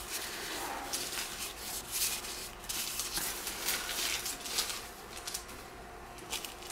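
Trading cards sliding and rubbing against one another as a stack is flipped through by hand: a soft, uneven rustle with a few light flicks.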